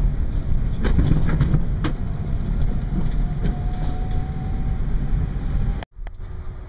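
Heathrow passenger pod running along its guideway, heard from inside the cabin: a steady low rumble of the ride with a faint thin whine rising slightly in the middle and a few light clicks. The sound cuts off abruptly near the end, giving way to quieter cabin noise.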